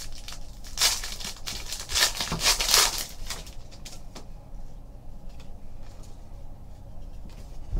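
A foil trading-card pack being pulled open, its wrapper crinkling and tearing in loud bursts about a second in and again around two to three seconds in. After that come fainter rustles as the cards are handled.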